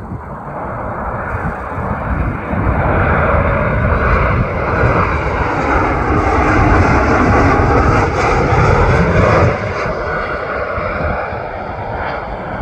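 Boeing 737 MAX 8 jetliner passing low overhead on landing approach, its CFM LEAP-1B engines building to a loud rush with whining tones that bend downward as it goes by. The noise drops sharply about nine and a half seconds in, then fades.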